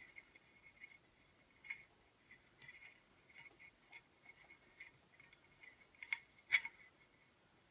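Faint, scattered ticks and rustles of hands tying twine and a fabric ribbon bow onto a wooden cutting board handle, with two louder clicks toward the end.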